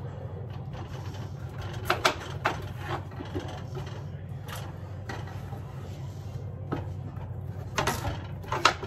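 Kitchen knife cutting raw potatoes on a cutting board: about ten irregular knocks, a few in quick pairs about two seconds in and again near the end, over a steady low hum.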